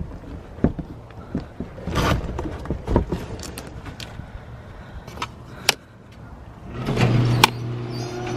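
Knocks, thumps and scrapes of a large cardboard shipping box being carried and set down, then a steady low mechanical hum that starts about seven seconds in.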